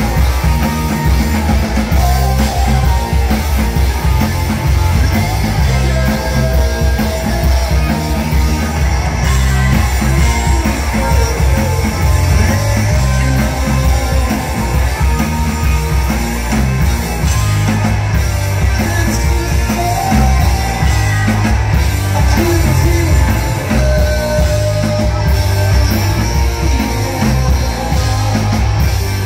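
Live rock band playing loud and without a break: electric guitars, bass and drums, with sung vocals.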